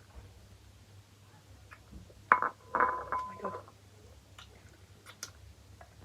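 Quiet eating at a meal: small scattered clicks and clinks of hands and dishes, broken by a short loud sound with a held tone about two and a half seconds in.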